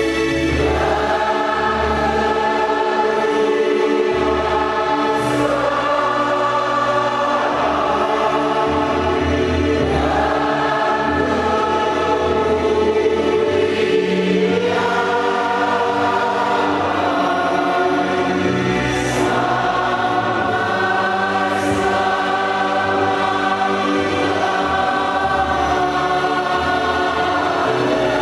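A church congregation singing a slow hymn together, many voices holding long notes and moving to a new note every few seconds.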